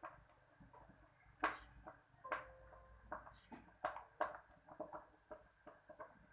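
Irregular sharp clicks and light knocks of small hard objects being handled, the loudest about a second and a half in.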